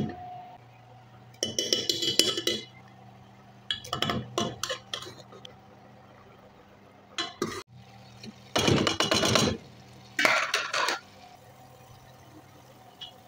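A metal spoon scraping and clinking against a metal cooking pot as a thick porridge is stirred. It comes in several separate bursts of about a second each, the loudest near the end.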